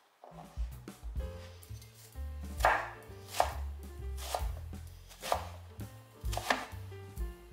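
Kitchen knife dicing eggplant strips into small cubes on a wooden cutting board: uneven knocks of the blade through the soft flesh onto the board, about two a second.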